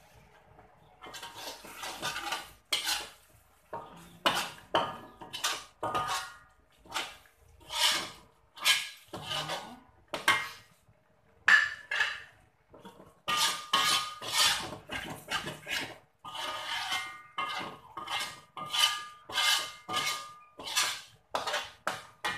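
Slotted metal spatula and ladle scraping and stirring coconut milk into a thick spice paste in an aluminium wok: a run of rasping strokes, roughly one a second, starting about a second in. Some strokes carry a faint metallic ring from the wok.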